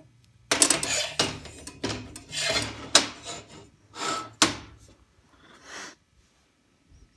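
Steel parts being shifted and scraped against a metal welding table, rubbing and grating in several strokes with a few sharp knocks among them, stopping about six seconds in.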